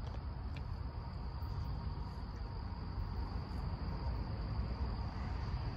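Crickets chirring steadily in the night, over a low, steady rumble.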